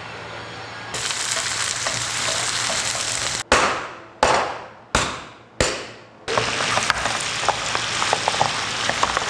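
Food sizzling and crackling as it fries in a pan. Midway, the sizzling breaks off for four sharp knocks about two-thirds of a second apart, each fading away quickly, and then it starts again.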